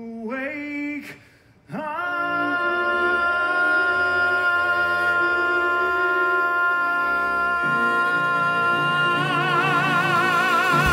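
A man singing a musical-theatre number over the pit band: a short phrase, then one long held note that swells into a wide vibrato near the end, as the band's chords change beneath it.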